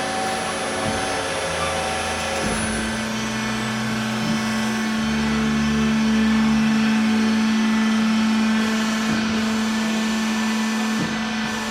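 Metallkraft BMBS 290x290 CNC-DG-F automatic band saw running: a steady machine hum with a lower hum that cuts in and out several times.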